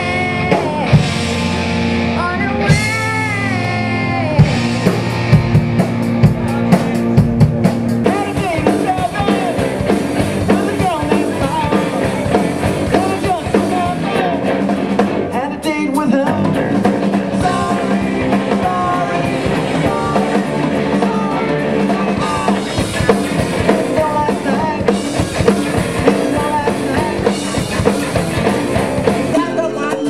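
Rock band music with a singer, guitar and drum kit. The music changes about eight seconds in.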